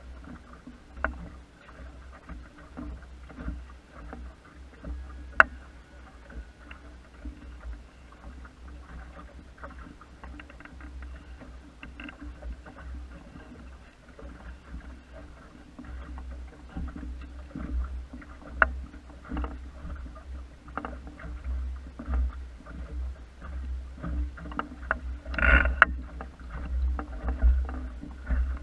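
Water splashing and lapping against the hull of a small wooden sailing dinghy under way, over a steady low rumble, with scattered sharp clicks and knocks from the boat. One louder rush of noise near the end.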